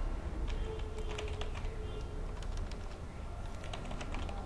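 Computer keyboard typing: irregular, quick keystroke clicks over a steady low hum.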